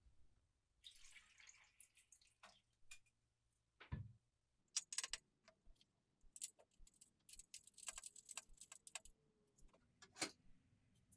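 Quiet handling of small hard metal parts: a soft brushing sound about a second in, a dull thump about four seconds in, then a run of light metallic clicks and clinks, with one more click near the end.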